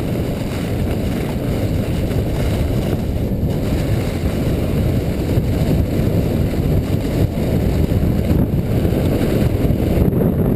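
Wind noise on a GoPro riding a sled down a groomed snow track, mixed with the sled gliding over the snow. It is a steady low rush that grows slightly louder as the sled speeds up.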